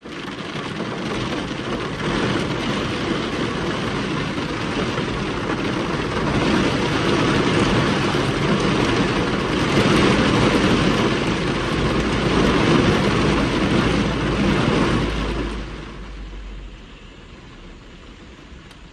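Heavy wind-driven rain pelting a car's windscreen and roof, heard from inside the car: a dense, loud patter with a deep rumble that swells toward the middle, then falls off sharply about sixteen seconds in to a much lighter patter.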